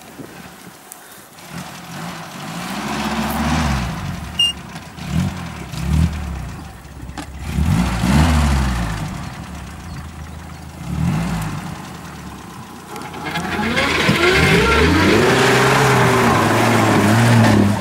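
Off-road 4x4's engine revving in repeated short bursts, each rising and falling in pitch, as the vehicle climbs a steep slope under load. Near the end it is held at high revs for about four seconds, then drops off sharply.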